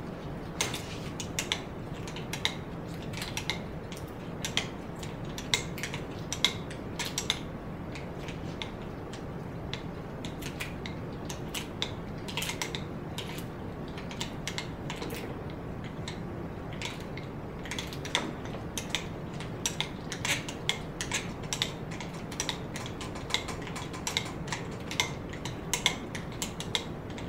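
Etching press being cranked by its star-wheel handle, the press mechanism giving many irregular clicks and ticks as the bed rolls through, over a low steady hum.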